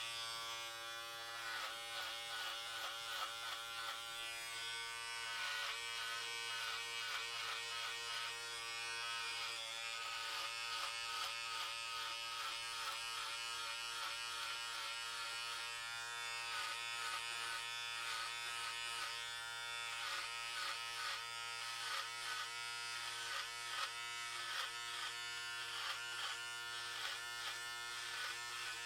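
Electric hair clippers buzzing steadily as they cut hair, the buzz fluttering unevenly as the blades pass through the hair.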